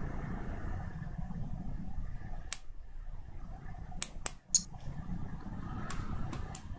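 Computer mouse clicks, about seven short sharp clicks spaced irregularly, three of them in quick succession around the middle, over a steady low hum of room noise.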